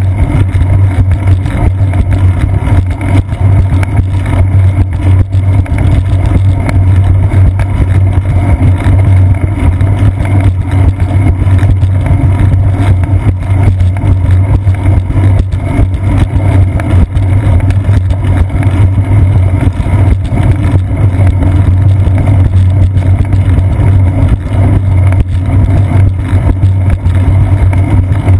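Steady, loud low rumble of vibration and wind noise picked up by a seat-post-mounted GoPro Hero 2 as the bicycle rolls along a concrete path.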